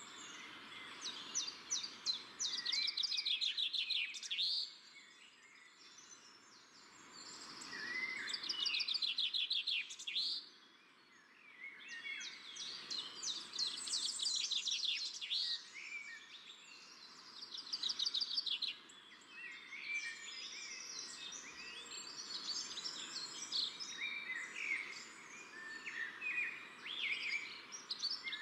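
Many small birds chirping and chattering together, rising in loud bursts of a few seconds with quieter gaps between, over a faint steady background noise.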